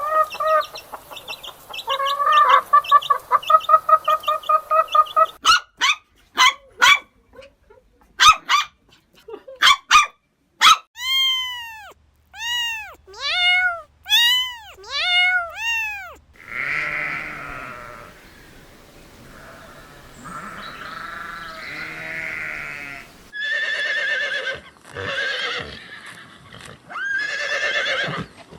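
A series of farm animal calls, changing from one animal to the next, with goats bleating over the last several seconds.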